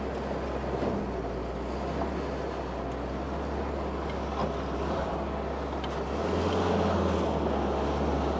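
1943 Willys MB jeep's four-cylinder Go Devil flathead engine idling steadily while warming up from a cold start. Its note rises briefly about six seconds in.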